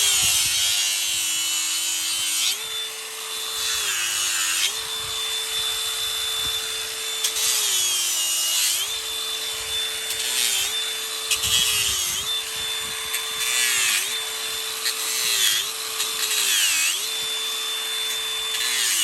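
Electric grinder with a 36-grit abrasive disc grinding down a horse's hoof heels. The motor whine drops in pitch each time the disc is pressed into the hoof, about eight times, and climbs back as it is eased off, with a rasping grind on each contact.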